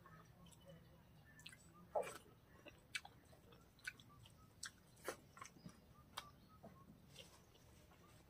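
Close-miked chewing of pork and rice: wet mouth clicks and lip smacks scattered irregularly, the loudest about two seconds in and again about five seconds in.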